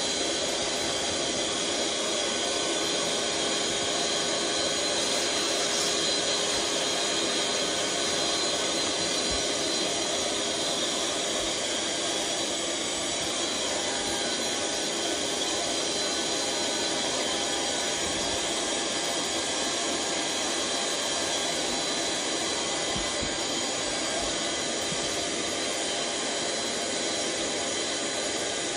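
Electric air pump running steadily, blowing air through a hose into a large vinyl inflatable.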